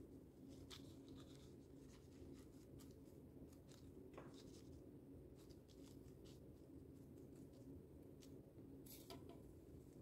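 Near silence: a low steady room hum with faint, scattered light ticks and rustles of a paintbrush and coffee-filter paper being handled.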